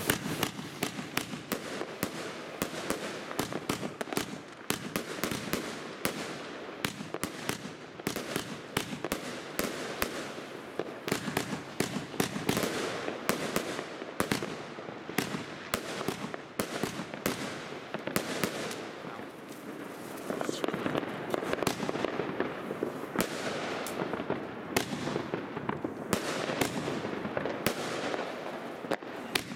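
Compound fireworks cake firing nonstop: a rapid barrage of launch shots and aerial bursts, many a second, with no pause.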